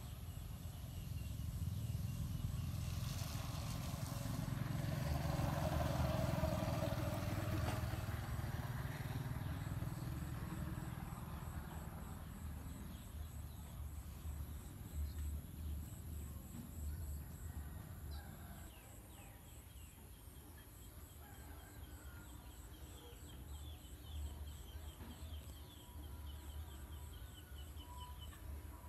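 Quiet outdoor ambience: a steady low rumble with faint bird calls, swelling briefly a few seconds in. Rows of short, quickly repeated chirps come in the second half.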